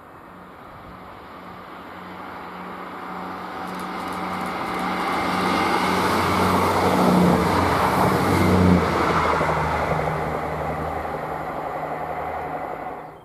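Two coupled Class 158 diesel multiple units passing at speed. A steady low diesel engine drone and wheel-on-rail rumble grow as the train approaches, are loudest about seven to nine seconds in, then fade as it moves away, cutting off suddenly at the end.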